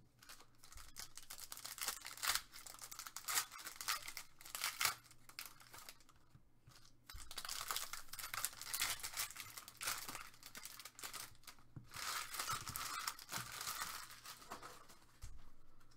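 Foil wrapper of a Panini Select basketball card pack being torn open and crinkled by hand, with cards being handled and laid down: a run of irregular rustles and crackles, busier in the second half.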